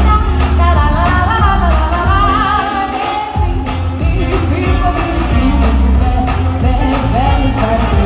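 Live band playing a pop song through a PA, with a lead vocal over electric guitar, keyboard, bass and drums. The bass drops out briefly about three seconds in, then comes back in.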